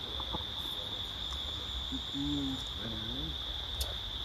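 Steady high-pitched drone of insects singing without a break, with a faint low voice murmuring briefly about halfway through.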